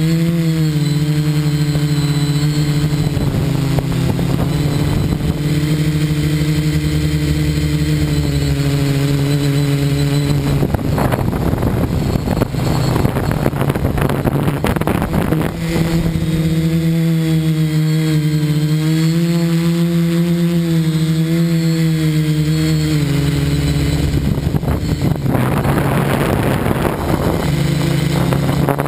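Electric motors and propellers of an FPV multirotor heard from its onboard camera: a steady buzzing hum whose pitch drifts up and down with the throttle. Twice, in the middle and near the end, a noisy rush swells over the hum for several seconds.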